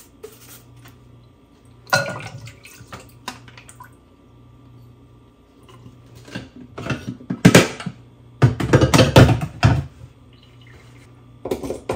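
Water sloshing and dripping as a toothbrush is dunked in a vinegar-water solution and scrubbed over a coffee maker's mesh filter screen. There is a short splash about two seconds in, and a louder cluster of scrubbing and clattering between about seven and ten seconds.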